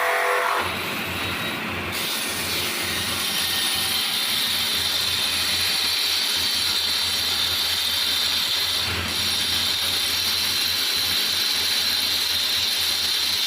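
Power tool running steadily with a high whine, the kind of machine used to grind or finish knife blades.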